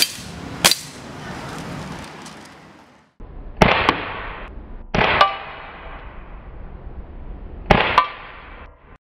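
Gas blowback airsoft pistol shooting plastic BBs at a ceramic tile and plastic bottles. Sharp cracks come in quick pairs, about four times, some with a short ringing clang from the BB striking the tile.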